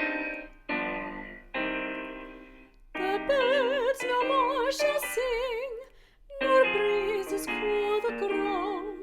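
Piano chords, then from about three seconds in a woman singing with vibrato over the piano accompaniment, pausing briefly near six seconds.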